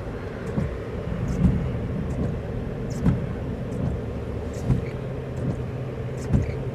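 Noise inside a car's cabin: a steady low rumble with a short knock repeating about every second and a half. A steady low hum comes in about two-thirds of the way through.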